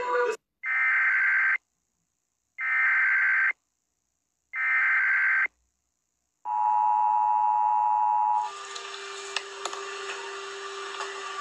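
United States emergency alert: three separate screeching data-tone bursts of about a second each, spaced about a second apart, then the steady two-tone attention signal for about two seconds. About three seconds before the end it cuts to a quieter steady low tone with hiss and a few clicks.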